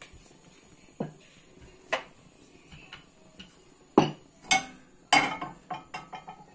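Wooden rolling pin knocking on a stone countertop while naan dough is rolled out: a few sharp knocks about a second apart, then louder knocks about four and five seconds in and a quick rattling clatter of kitchenware.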